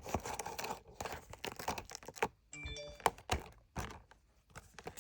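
Cherry MX Green clicky mechanical keyboard switch, 80 g, being pressed over and over: sharp clicks in irregular clusters, the loudest about three seconds in. A short ringing tone sounds about halfway through.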